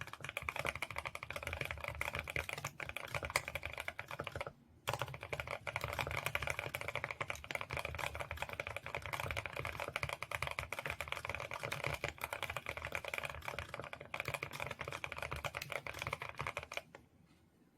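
Fast, continuous typing on a mechanical keyboard with Gateron Oil King linear switches: a dense run of low-pitched keystrokes with a brief pause about four and a half seconds in, stopping just before the end.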